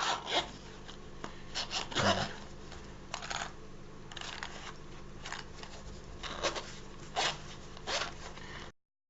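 Fabric headphone storage case being handled and worked inside out by hand: irregular rubbing and scraping rustles, a dozen or so short bursts. The sound cuts off abruptly near the end.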